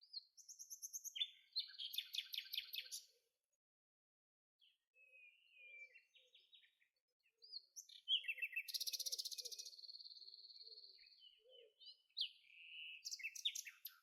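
Songbird singing in four phrases of rapid high chirps and trills with short pauses between them, the longest a buzzy trill about eight seconds in.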